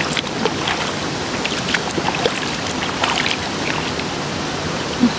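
Steady rush of flowing water in a river-fed bathing pool, with small splashes and drips as hands move through the water, mostly in the first three seconds.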